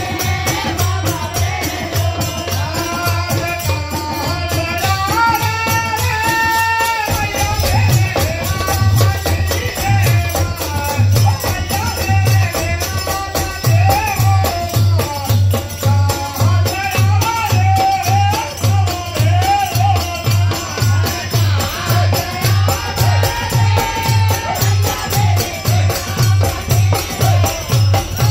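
Indian devotional folk music of a Devi jas bhajan: a wavering melody over a low steady drone, joined about eight seconds in by a regular drum beat, with jingling percussion.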